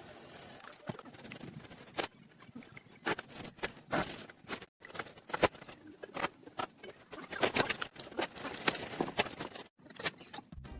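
Irregular sharp taps, clicks and knocks, like hand-tool work on metal, coming in quick clusters over a light background hiss.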